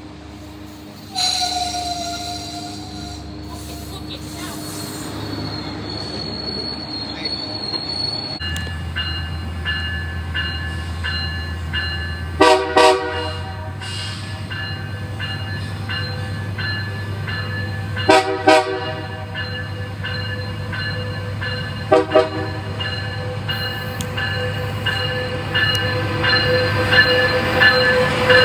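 Nathan Airchime K3 horn on an EMD F125 locomotive sounding short chord blasts as the train approaches: two quick blasts, then two more, then a single one, over the steady rumble of the locomotive. The locomotive then rolls close past, growing louder. Before this, a passenger train runs past the platform.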